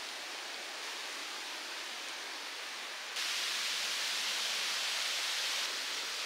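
Steady, even rushing hiss of outdoor ambience with no distinct events, stepping suddenly louder about three seconds in and dropping back just as suddenly a little before the end.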